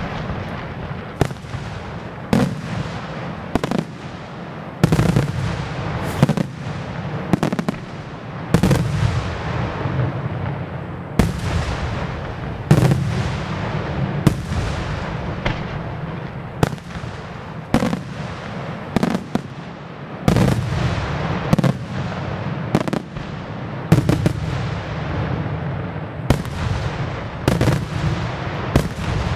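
Aerial firework shells bursting one after another, a sharp bang about once a second, with a rolling low rumble filling the gaps between bangs.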